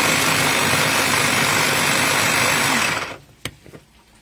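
Small electric mini chopper running steadily as its blade chops tomatoes, garlic and peppers for tomato choka. It stops about three seconds in, and one short click follows.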